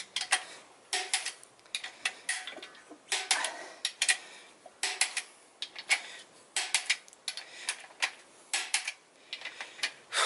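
Click-type torque wrench on the main stud nuts of a 6.7 Cummins engine block: short runs of sharp metallic ratchet clicks and the wrench's click-over come about once a second, as each nut is rechecked at the 75 foot-pound step.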